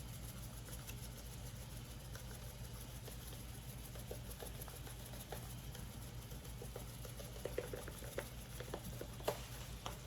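Lemon pepper seasoning sprinkled onto raw chicken breasts: a faint patter of light taps that grows more frequent in the last few seconds, with one sharper click near the end, over a steady low hum.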